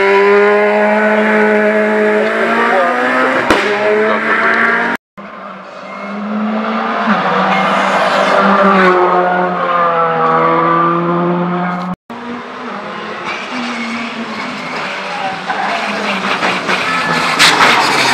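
Rally car engines at high revs: a Peugeot rally car revving hard and pulling away from the start with wheelspin, then, after two abrupt cuts, rally cars approaching on a tarmac mountain road, revs rising and falling through gear changes and growing louder near the end.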